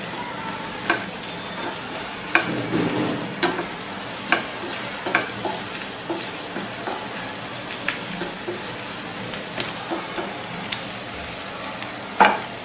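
Chopped onion frying in hot oil, a steady sizzle, with a spatula stirring and knocking against the pan every second or so.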